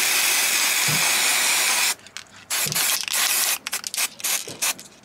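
Aerosol can of black spray paint hissing as it sprays metal drawer handles: one long burst lasting about two seconds, then a second burst, then several short bursts.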